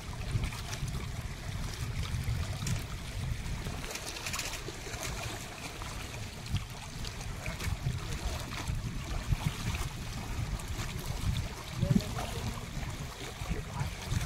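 Water sloshing and lapping at a rocky lake edge, under an uneven low rumble of wind on the microphone.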